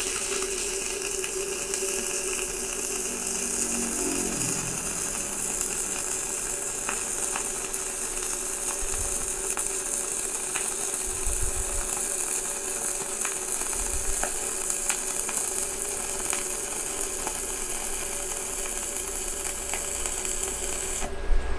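Stick (MMA) welding arc from a 2.5 mm electrode on a Kobe 250 inverter welder set to about 200 amps: a steady crackling hiss with scattered pops, which cuts off shortly before the end as the arc is broken.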